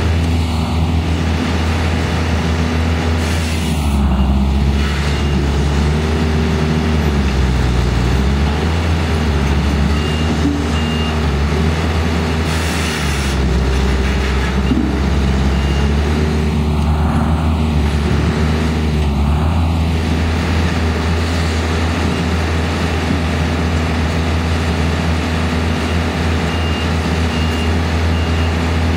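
Engines of heavy machines running steadily, their pitch rising and falling as they rev, with short high beeps, often in pairs, now and then.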